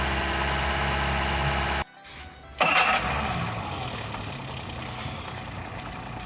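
Boat engine running steadily, then cut off abruptly just under two seconds in; after a short silence a sharp loud burst, and the engine runs on, quieter and steady.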